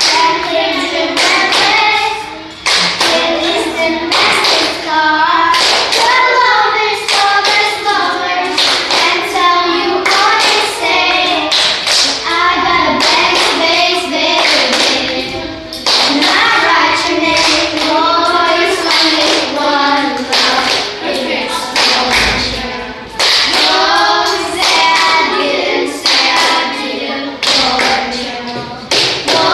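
A group of primary-school children singing a song together while clapping and tapping a steady beat with their hands as a rhythmic ensemble.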